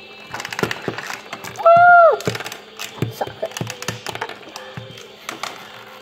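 Small plastic action-figure toys and pieces clicking and knocking on a tiled tabletop as they are handled. About two seconds in there is a brief high squeal that rises and falls.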